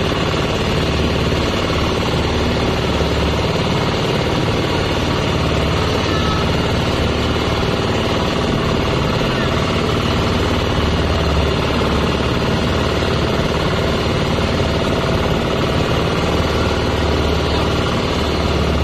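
Small wooden motorboat's engine running steadily while under way across open water.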